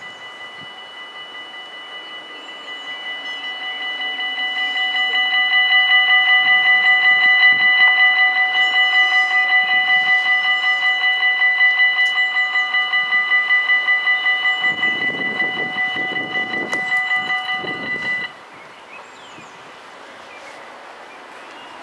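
Dutch level-crossing warning bells ringing rapidly and steadily while the barriers lower. The ringing swells over the first few seconds, then cuts off abruptly about three-quarters of the way in as the barriers come fully down. A low rumble rises under the bells in the last few seconds before they stop.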